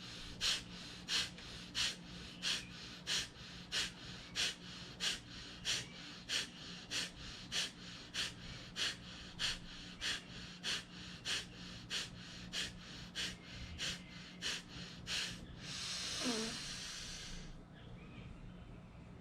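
Kapalbhati pranayama breathing: a run of about 25 sharp, forced exhalations through the nose, evenly paced at under two a second, each followed by a passive in-breath. About 16 s in, the run ends in one long, deep inhalation through the nose.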